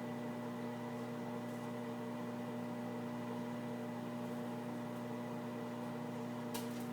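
Microwave oven running with a steady electrical hum, a brief click near the end.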